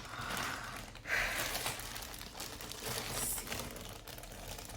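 Plastic clothing packaging crinkling and rustling as an item is handled and unwrapped, with a louder crinkle about a second in.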